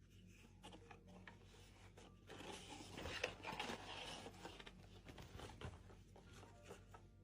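Near silence, with faint scattered rustling and scraping about two to six seconds in.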